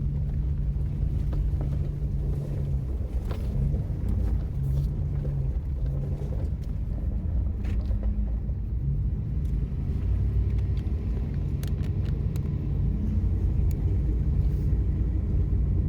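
Car driving: a steady low rumble of engine and road noise, with the engine's hum shifting in pitch now and then.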